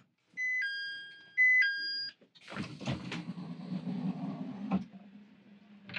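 Train door chime, a two-note descending ding-dong sounding twice, then the carriage door sliding open with a rush of noise and a knock. Afterwards the railcar's engine hums steadily at the station stop.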